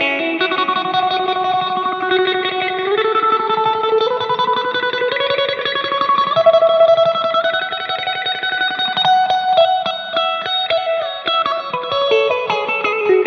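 Electric guitar played through an M-VAVE Tank-G multi-effects pedal, picking a single-note mor lam–style lead: long held notes that step up and down in pitch, with quicker picked notes in the second half.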